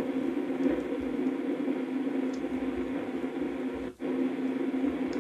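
Sony CRF-320 shortwave receiver at full volume giving out steady static while its tuning dial is turned, with no station coming through; the noise cuts out for an instant about four seconds in. The empty band is a sign of the receiver's shortwave fault, which the owner calls definitely not normal.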